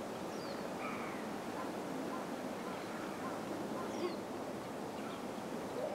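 Steady wind and water noise with several brief bird calls scattered through it.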